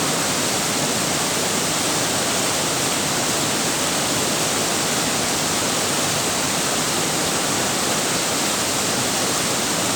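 Waterfall: a steady, unbroken rush of falling water, dense and even throughout.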